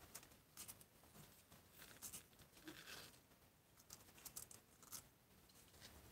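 Faint, scattered scratches and rustles of newborn kittens squirming and crawling over one another on the cardboard floor of a box.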